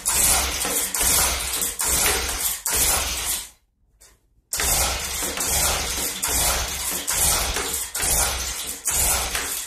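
Stihl BG 65 leaf blower's two-stroke engine running at speed with the fan blowing, the noise swelling and falling in a regular pulse about every three-quarters of a second. The sound cuts out for about a second near the middle, then comes back the same.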